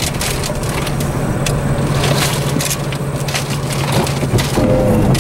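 Inside a vehicle driving on a dirt road through a thunderstorm: a steady low rumble of engine and road noise, overlaid by dense, irregular crackling and ticking.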